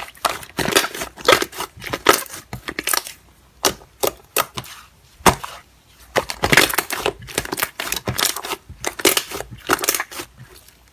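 Slime being squeezed and pressed by hand, giving irregular crackling clicks and pops.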